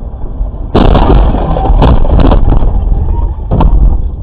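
Car driving, its engine and road noise heard from inside the cabin. The noise becomes much louder about a second in, with a few sharp knocks over the next few seconds.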